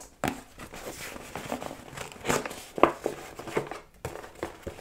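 Paper food packaging being handled: irregular crinkling and rustling with short sharp clicks, loudest a little after two seconds in.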